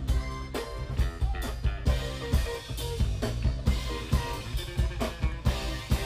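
Live blues band playing: electric guitar over a drum kit keeping a steady beat.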